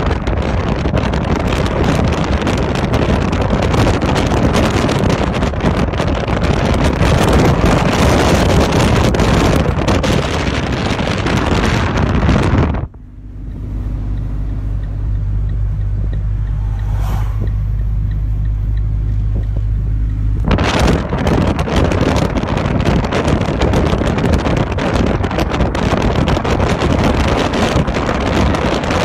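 Strong wind rushing across the microphone in tornado winds, a loud steady rushing noise. About thirteen seconds in it gives way abruptly to a low, steady rumble, and after several seconds the loud rushing returns.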